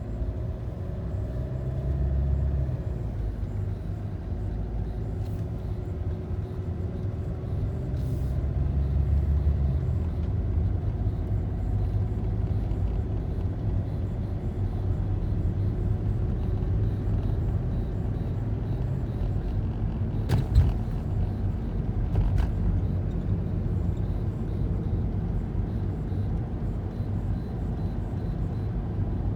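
Car driving, heard from inside the cabin: a steady low road and engine rumble with a faint engine tone that drifts in pitch, and two sharp clicks about two-thirds of the way through.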